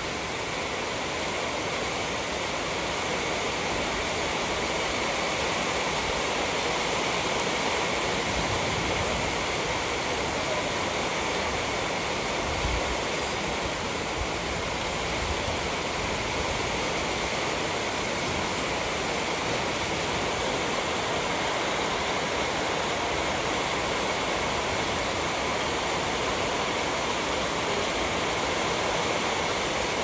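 Heavy rain pouring down steadily, a dense, even hiss of rainfall.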